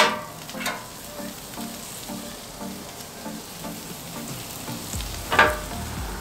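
Split beef marrow bones searing cut side down on a hot steel flat-top griddle: a steady sizzle, with a loud burst of sizzle as each bone is set on the steel, at the start and again about five seconds in.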